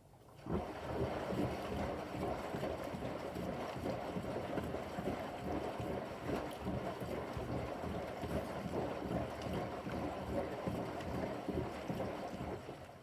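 Bosch washing machine drum tumbling during a Quick 15 wash, with water and a pillow sloshing inside. It starts about half a second in, runs steadily for about twelve seconds, then stops as the drum pauses.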